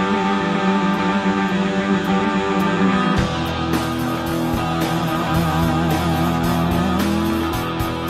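Punk rock song with no vocals: electric guitars hold ringing chords, then about three seconds in the full band comes in with bass and drums.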